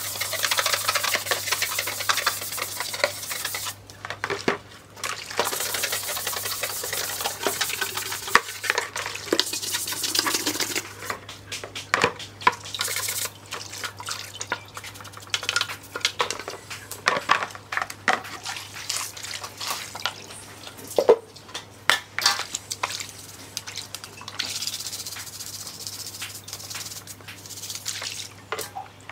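A stiff brush scrubbing a black plastic subwoofer enclosure in a plastic basin of soapy water: irregular scratchy scrubbing strokes, water sloshing and dripping, and a few sharp knocks of the plastic shell against the basin.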